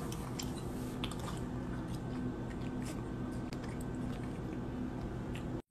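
Quiet room noise with a faint steady hum and scattered soft clicks, cutting off abruptly at the end.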